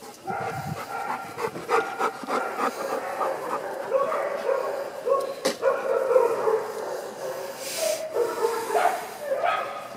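Dogs barking and yipping, a quick run of short high-pitched calls, with a single sharp click about five and a half seconds in.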